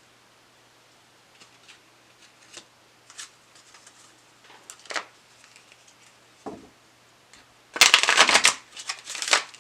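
A deck of oracle cards being handled and shuffled: light scattered flicks and rustles of the cards, then a louder run of shuffling about eight seconds in and a shorter one near the end.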